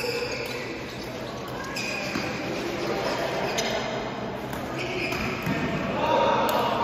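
Echoing badminton-hall sound: sneakers squeaking briefly on the court floor several times, with a few sharp racket-on-shuttlecock hits and voices in the background.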